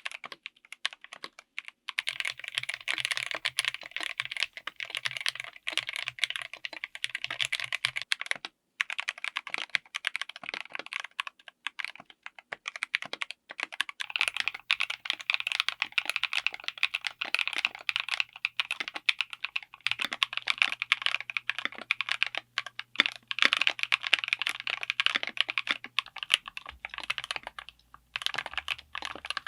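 Fast, continuous typing on a mechanical keyboard fitted with linear switches, a dense run of key clacks broken by a few short pauses.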